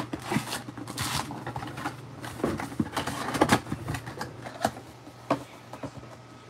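Cardboard trading-card box and its wrapped card packs being handled and tipped out onto a table: irregular rustling with light knocks and taps.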